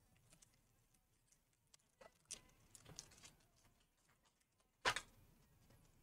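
Faint rustling and small clicks of plastic tape being lifted off a laptop LCD cable connector with a metal pry tool, with one sharper click a little before the end.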